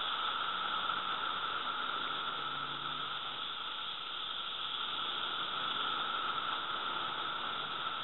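Chorus of Brood II periodical cicadas (Magicicada) in the trees overhead: a steady, loud droning hiss from many males singing at once, with its main pitch near 1.3 kHz. Its loudness swells and eases only slightly.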